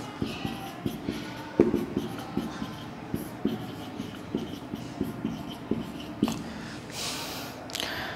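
Marker pen writing on a whiteboard: a run of short, irregular strokes and taps as the words are drawn, with a brief hiss about seven seconds in.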